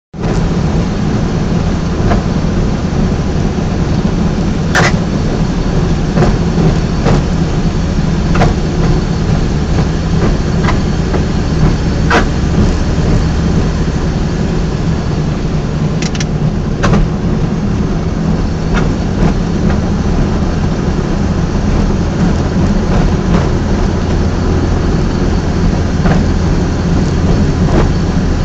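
Drivetrain of a 1983 Subaru BRAT running steadily, with sharp clicks at irregular intervals every second or two; the owner calls these bad noises.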